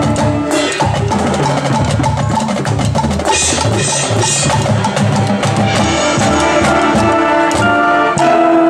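Marching band playing its show music: brass and saxophones holding chords over a drumline with bass drums.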